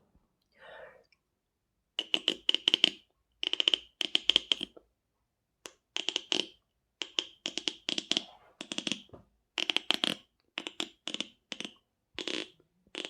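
Beatboxer's mouth making rapid clicking pops in short clusters of several, repeated about a dozen times with brief silences between, as a vocal imitation of a sound effect.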